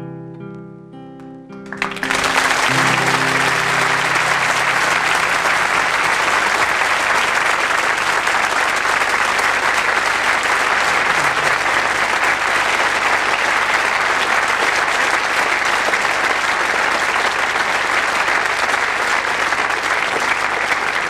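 The last notes of a song's instrumental accompaniment ring out and fade, then a large audience breaks into loud, sustained applause about two seconds in.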